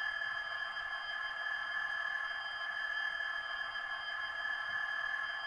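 Hornby TTS sound decoder in a model Class 66 locomotive playing the diesel's idling engine sound through its small onboard speaker. The sound is steady, with a high whine on top and almost no low end.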